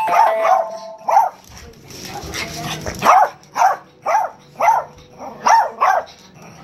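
A pug barking sharply and repeatedly at a person during rough play: a few quick barks in the first second, then after a pause a steady run of six barks about half a second apart.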